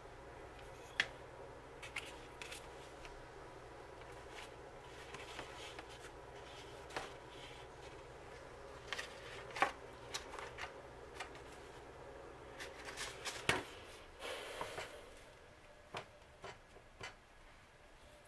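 Hands handling paper plates and egg rolls: scattered light taps, scrapes and papery rustles, with a brief louder burst of rustling about three-quarters of the way through.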